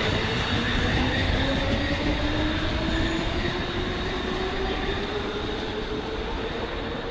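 Hamburg S-Bahn class 472/473 electric train pulling away over the rumble of its wheels, its traction motors giving a whine that rises steadily in pitch as it accelerates. The sound fades slightly as the train draws off.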